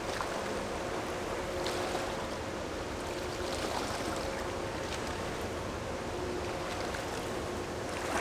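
Steady waterside wash of moving water and wind, with a faint engine hum from a passing ship that fades in and out.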